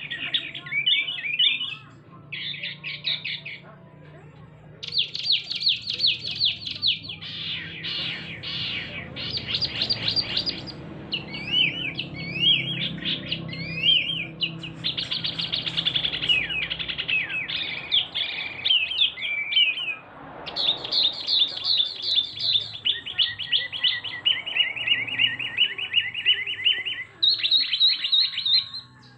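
A caged male Javan wambi mini singing loudly: a long run of high, rapid trilled phrases, each a quick string of repeated notes, the pattern changing from phrase to phrase with a couple of short pauses early on.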